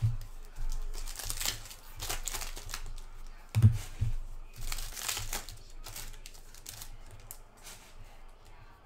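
Foil wrappers of football trading-card packs crinkling and tearing as they are handled and opened by hand, in short rustling bursts. There are two dull thumps, one at the very start and one a little past the middle.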